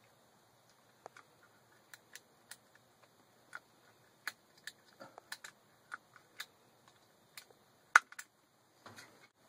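Irregular sharp clicks and light taps of plastic pipe and brass fittings being handled and pushed together, one click much louder about eight seconds in, then a brief rustle near the end.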